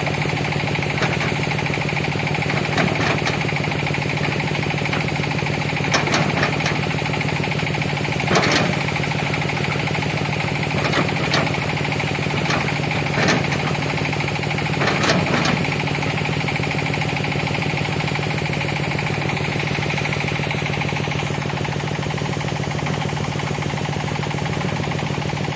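Hitachi ZX200 excavator's diesel engine running steadily, with a constant low hum. Short, sharp clanks come every two to three seconds during the first two-thirds and then stop.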